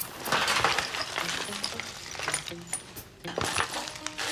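The contents of a bag (banknotes, a wallet, a watch and a pearl necklace) tipped out onto a tabletop, spilling mostly in the first second with more shuffling about three seconds in.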